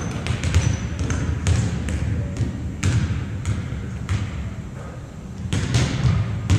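Volleyballs smacking and bouncing on a hardwood gym floor: a string of sharp, irregular thuds, about one every half second to a second.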